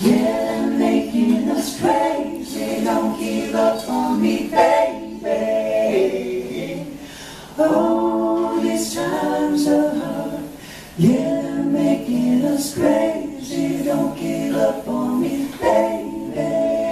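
A cappella singing: several voices in harmony with no instruments, in phrases with short breaks between them.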